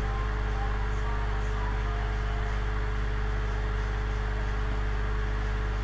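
Steady low hum with a constant higher tone over an even hiss, unchanging throughout.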